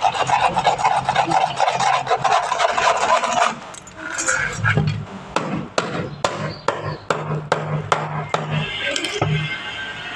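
Rapid rasping strokes of a hand tool working a hard surface, in the manner of filing or sawing. They stop about three and a half seconds in and give way to a string of sharp, separate taps over a low hum.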